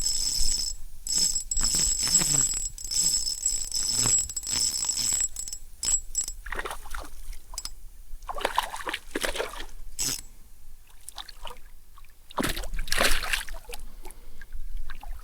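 Shallow creek water splashing and sloshing in irregular bursts as a hooked smallmouth bass is landed and handled. A steady high-pitched whine runs through the first half.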